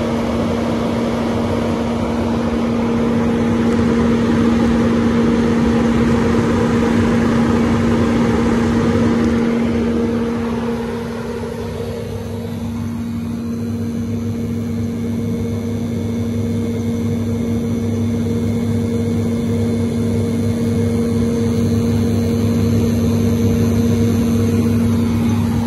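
Hinode flat-bed grain dryer running just after ignition: its burner and blower fan make a steady hum with a strong low tone under a rushing roar. About ten seconds in the roar drops away, leaving the steady machine hum.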